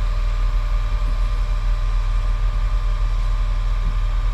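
Engine running steadily at idle: a continuous low rumble with a faint steady whine over it.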